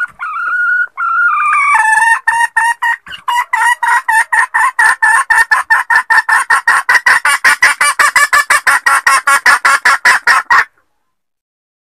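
Red junglefowl hen cackling. It opens with a couple of drawn-out notes, then runs into a fast series of short clucks that speeds up to about four or five a second and cuts off suddenly near the end.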